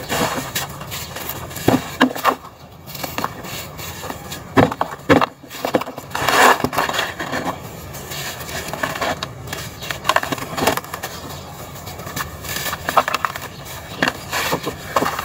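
Lumps of dry red dirt crushed and crumbled by hand, with grains and powder pouring into a plastic tub: irregular gritty crunching with a few sharper cracks.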